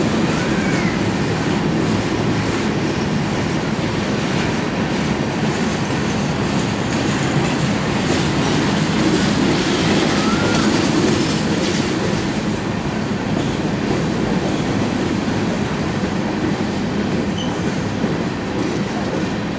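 Freight train of covered hopper cars rolling past on curving track: a steady rumble and clatter of steel wheels on the rails, with a faint brief wheel squeal near the start and another about ten seconds in.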